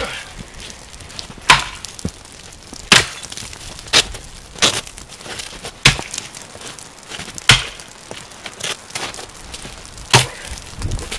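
An axe chopping into the trunk of a standing dead spruce, in about eight separate blows, roughly one a second, with a longer gap near the end. Each stroke is a sharp, woody chop.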